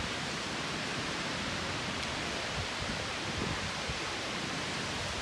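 Storm-force wind rushing steadily through the forest trees, an even, unbroken rushing noise.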